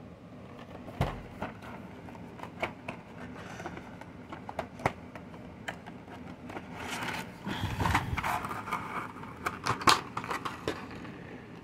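Action figure packaging being opened by hand: scattered clicks and taps on the cardboard box, then cardboard and packaging rustling and crinkling with a few sharp snaps in the second half, loudest near the end.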